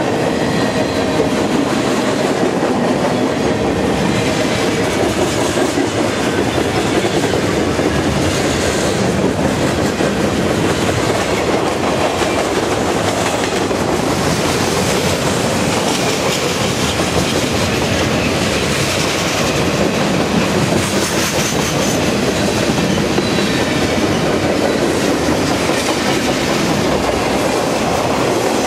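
Freight train cars, including open hoppers, tank cars and boxcars, rolling past close by: a loud, steady rumble of wheels on rail.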